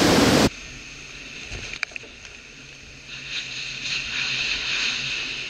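Hurricane wind buffeting the microphone, cut off abruptly about half a second in. It gives way to quieter, muffled wind and rain with a faint steady hum and a high whistle, building again from about three seconds in. There is a single sharp click near two seconds.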